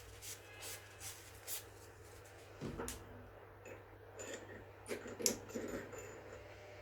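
Hand cleaning and handling of a mini lathe's chuck and spindle: light rubbing strokes, then several small clicks and knocks with faint high pings, over a steady low hum.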